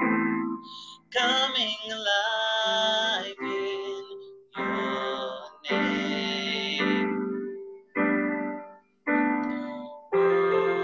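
Worship song: a singing voice over keyboard chords. The sound cuts out abruptly for brief moments several times.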